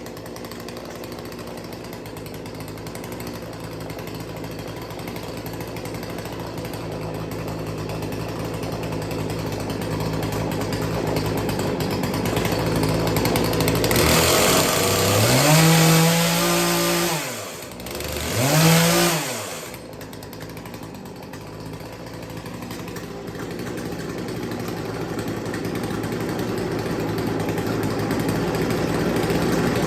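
Two-stroke chainsaw engine running at a steady idle during carburetor idle tuning. About halfway through it is revved up twice, each time falling back, then settles to idle again.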